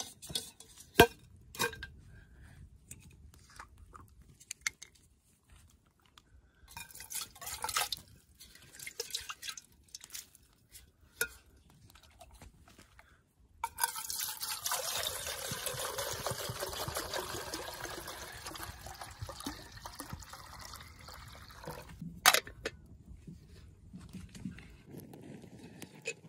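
Water poured in a steady stream into a metal kettle for about eight seconds. Before it come scattered sharp knocks and clicks, and after it one sharp knock.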